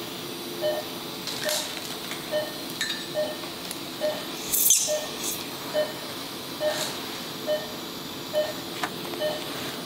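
Operating-room patient monitor beeping steadily, a little more than once a second: the pulse oximeter's tone keeping time with the patient's heartbeat. A short hiss about halfway through and a few faint instrument clicks.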